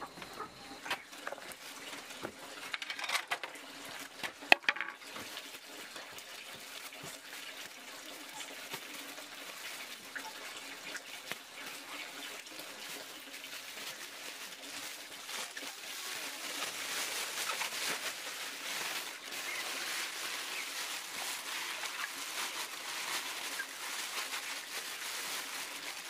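Water splashing and trickling as small river fish are emptied from a plastic bag into a plastic basin, the splashing getting louder in the second half. A few sharp knocks come in the first few seconds.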